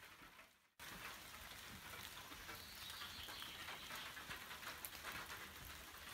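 Faint light rain pattering steadily, many fine drops, coming in just under a second in after a moment of near silence.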